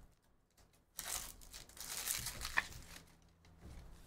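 Foil wrapper of a 2023 Panini Phoenix football hobby pack being torn open and crinkled, starting about a second in and fading out toward the end.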